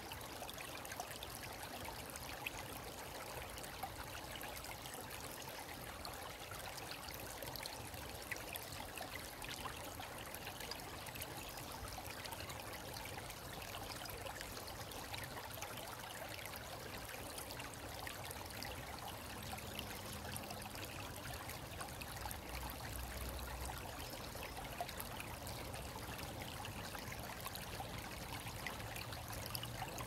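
Shallow stream running over pebbles and small snags of twigs and leaves: a steady trickling rush of water.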